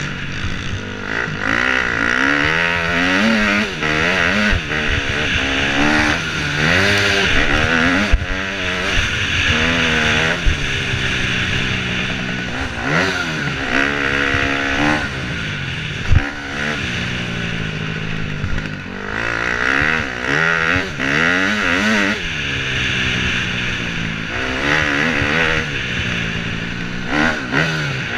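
KTM 250 dirt bike's engine revving up and falling back over and over as the throttle is opened and closed, with a steady hiss of wind over it. A sharp knock sounds about halfway through.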